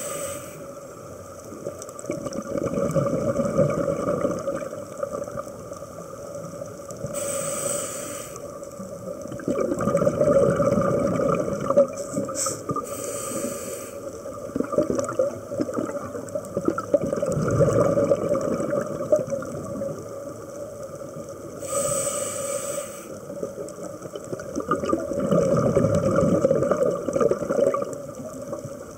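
Scuba diver breathing through a regulator underwater, about four breaths: each a short hiss on the inhale followed by a few seconds of low bubbling as the exhaled air escapes. A faint steady hum runs under it.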